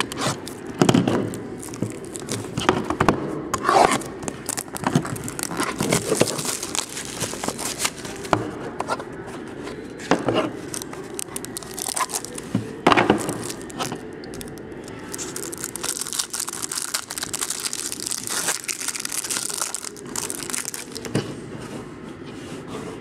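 Plastic wrapping on a box of trading cards being torn open and crinkled by hand: continual irregular crackling, with several louder sharp rips.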